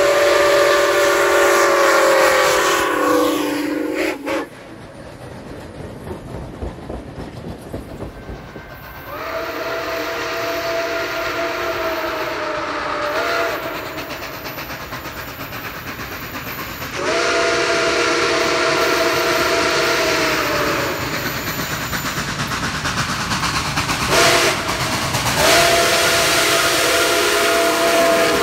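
Brass Nathan six-chime steam locomotive whistle blowing a chord in blasts: two long, one short, then one long, the standard grade-crossing signal. An earlier long blast dies away with a falling pitch about four seconds in. Between the blasts, steam hiss and the running noise of the train.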